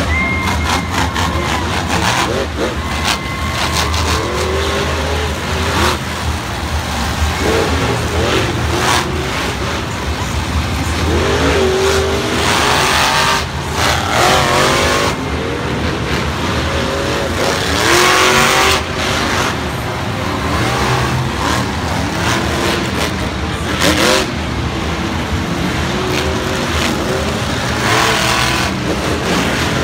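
Several monster trucks' supercharged V8 engines running and revving as they drive round the arena floor. Their pitch rises and falls over and over above a steady low drone.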